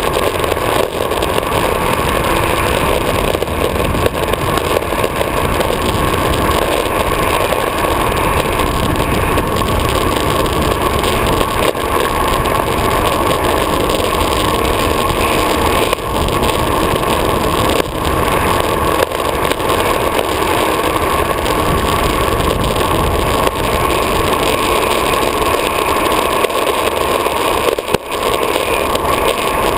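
Longboard wheels rolling fast on asphalt, with wind rushing over the board-mounted camera: a loud, steady rush of rolling noise with only brief slight dips.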